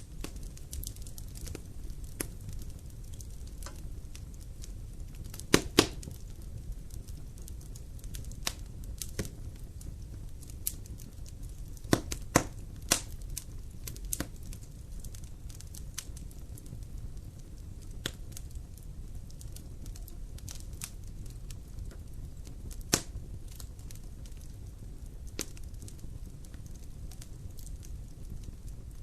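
Fire burning in a fireplace: a steady low rumble with irregular crackles and sharp pops, a few of them much louder than the rest.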